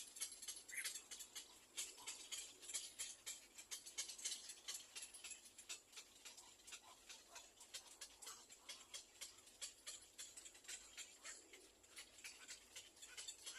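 Faint, rapid, irregular clicking and rustling, typical of little black cormorant nestlings stirring in their nest.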